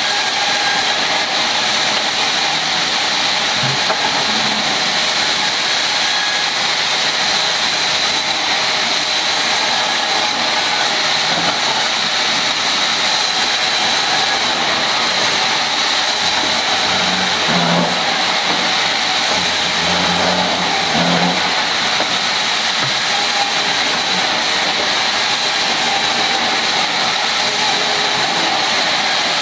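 Vertical band saw running and ripping rubberwood logs and slabs: a steady, loud noise with a constant high whine.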